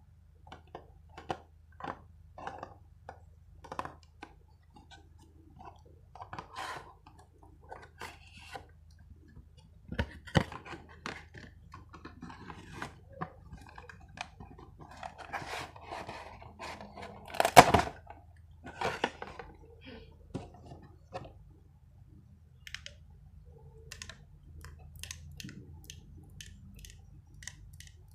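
ASMR triggers: irregular taps, clicks and handling noises on small objects, with one louder knock about eighteen seconds in.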